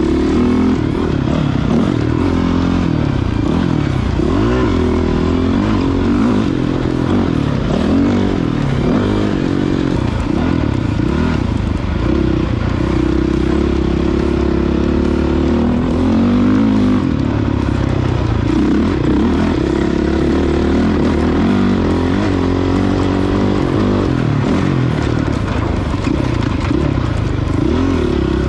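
Honda CRF450X dirt bike's single-cylinder four-stroke engine on a motocross lap, its pitch rising and falling over and over as the throttle is opened and shut through the jumps and corners.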